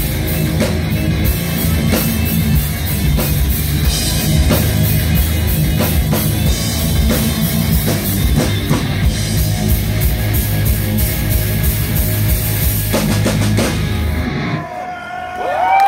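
Live heavy metal band playing loud distorted electric guitars over a pounding drum kit. The music stops abruptly near the end and the crowd starts cheering and shouting.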